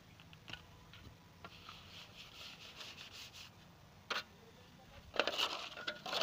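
Wet cement mix being scooped by hand from a pan and worked onto a mould: scattered light taps and gritty scraping, a single sharp knock about four seconds in, and a louder stretch of scraping and scooping near the end.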